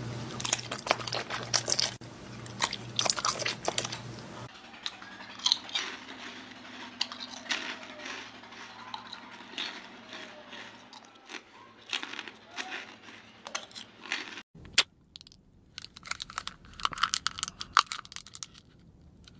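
Close-miked eating sounds: bites, crunches and chewing of gummy candy and crunchy snacks, many sharp crunches in quick succession. The background changes abruptly twice, about four and a half seconds in and again near fifteen seconds.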